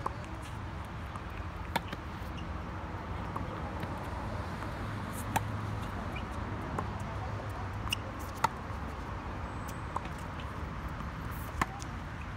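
Tennis rally on a hard court: sharp pops of the ball struck by racket strings and bouncing. The loudest hits come about every three seconds, over steady background noise.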